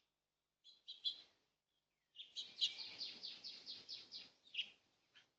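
Bird calling: a couple of short high chirps, then a rapid run of about a dozen repeated notes, roughly five a second, lasting about two and a half seconds.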